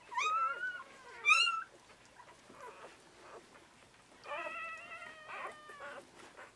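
Newborn poodle puppies squeaking and crying, mewing like kittens: two short rising squeaks in the first two seconds, the second the loudest, then a longer held cry about four seconds in.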